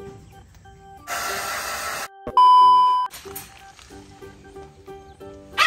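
Background music with a steady beat; about a second in, a hiss lasting about a second, then a loud single-pitched electronic beep of under a second.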